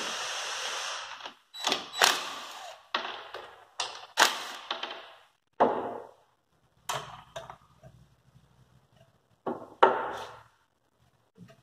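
A cordless driver runs steadily for about a second, backing out the screws of a small cover plate on an intake manifold, then stops. It is followed by a string of sharp metal clinks and knocks as the tool, screws and parts are set down and the manifold is handled on a metal-topped table.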